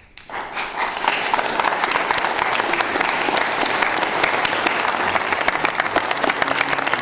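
Audience applauding: dense hand clapping that starts just after the beginning and builds to full strength within about a second, then carries on steadily.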